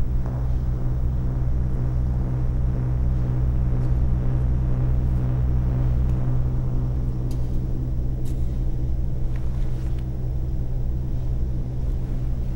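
A low, steady rumbling drone with a deep hum, swelling slightly around the middle. It is part of the film's sound design. A few faint ticks sound in the second half.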